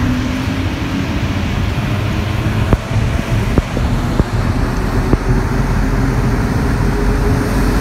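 Cab-interior running noise of a CAF NS-07 rubber-tyred metro train moving through a station: a steady rumble of tyres and running gear with a faint hum, and a few sharp knocks from the track between about three and five seconds in.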